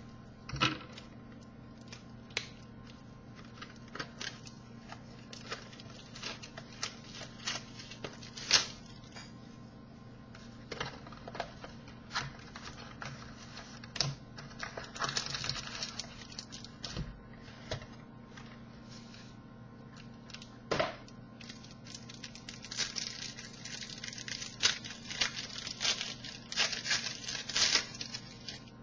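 Trading-card box and foil pack wrappers being opened by hand: a run of sharp clicks and taps as the cardboard is handled, with crinkling and tearing about halfway through and more thickly in the last several seconds. A steady low electrical hum runs underneath.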